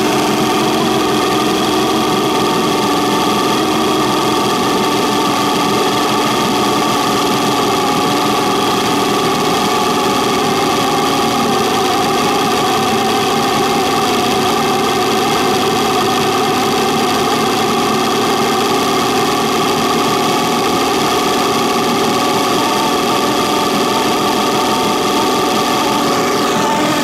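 1976 Mercury inline-six two-stroke outboard, cowling off, running steadily at an even speed.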